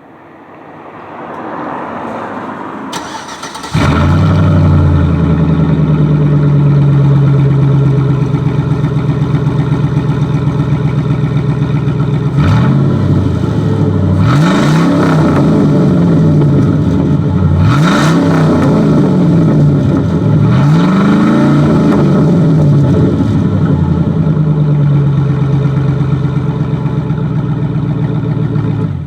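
2007 Chevy Silverado's 4.8-liter V8 running through a straight pipe with the muffler removed: it starts about four seconds in and idles loudly. It is blipped several times in the middle, each rev rising and falling, then settles back to idle and shuts off at the very end.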